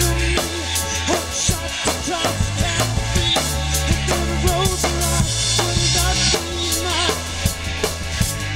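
Live rock band playing: a drum kit keeping a steady beat on bass drum and snare, under electric bass, electric guitar and synth keyboard.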